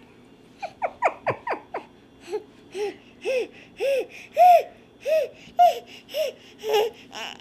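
Seven-month-old baby laughing: a few quick high squeals about a second in, then a run of rhythmic laughs, about two a second.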